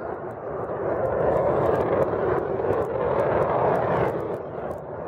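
Jet aircraft flying past overhead, a steady rushing rumble that grows louder about a second in and eases off near the end.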